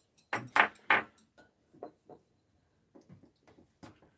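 Metal chopsticks clicking and tapping against ceramic plates and bowls while serving food, with a few louder clatters about half a second in and scattered light clicks after.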